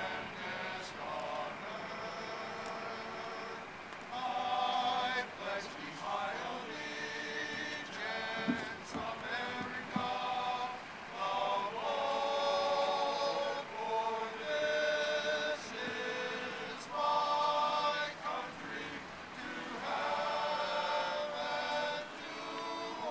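Men's barbershop chorus singing a patriotic song in close harmony, in phrases of held chords.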